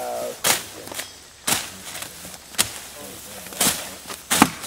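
Machete blows, five sharp chopping cracks about one a second.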